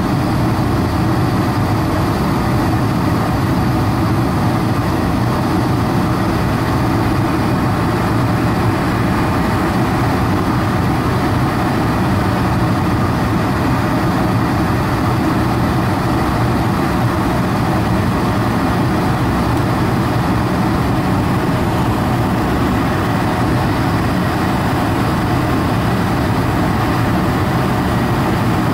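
Steady engine and airflow noise inside the cabin of a Boeing 747-400, its General Electric CF6-80C2 engines running during the descent on approach.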